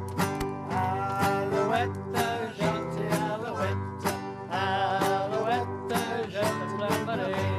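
Acoustic guitars strummed in a steady country rhythm, with a voice singing along.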